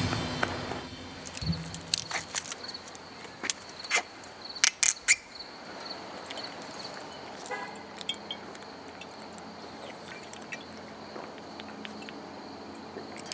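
Crickets chirping in a steady high trill, with scattered sharp clicks and knocks, most of them in the first few seconds.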